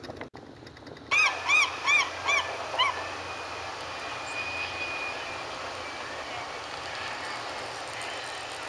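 A bird calls about six times in quick succession, sharp arched notes about a third of a second apart, about a second in. Under and after it, a single-engine floatplane's engine and propeller run steadily as it touches down on the water.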